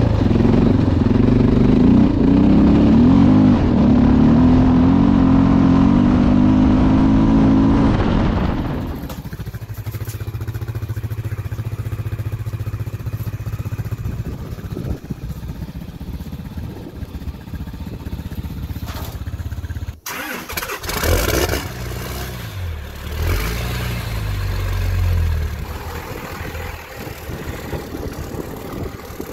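Honda XR650L's air-cooled single-cylinder four-stroke engine running as the bike is ridden, its pitch rising and falling with the throttle. About 8 seconds in it drops to quieter, steadier running, and about 20 seconds in there are a few brief revs.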